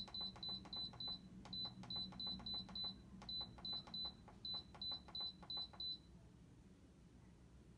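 Instant Pot control panel beeping at each button press as the pressure-cook time is set: a quick run of short, high, identical beeps, about four a second in small groups. The beeps stop about six seconds in.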